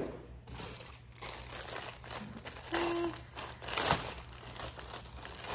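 Rummaging through a cardboard box of shoes: packaging rustling and crinkling, with a few small handling knocks.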